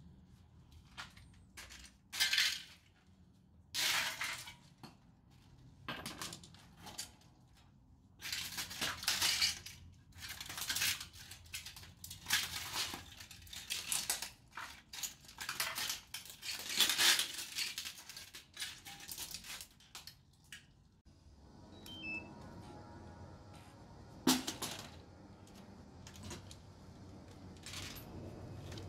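Broken plastic and circuit-board pieces of a smashed DJI FPV drone crunching and clattering in a run of short irregular bursts as they are crushed underfoot. About twenty seconds in the crunching stops, leaving a low steady background with a single sharp knock.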